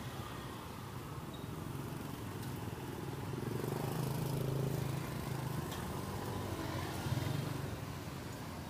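Street traffic noise: a passing motor vehicle's engine hum that swells about halfway through, then fades, over a steady street background.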